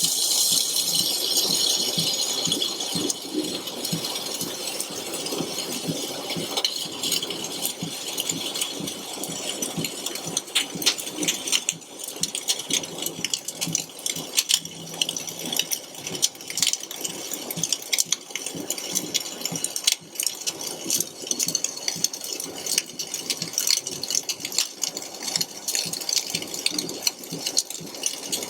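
Flux-cored arc welding: the arc's continuous crackling sputter, dense with sharp pops, holding steady as the wire feeds along a vertical-up weld.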